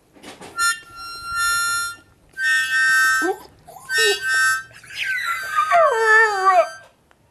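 A harmonica plays three held chords while a dog howls along: short yelps between the chords, then a long howl that falls in pitch and wavers.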